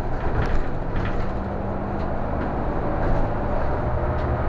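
City bus running, engine and road noise heard from inside the passenger cabin as a steady drone. A faint steady whine comes in near the end.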